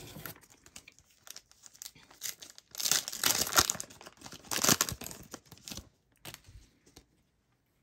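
Foil-lined trading-card pack wrappers crinkling as they are handled, louder in two bursts about three and five seconds in.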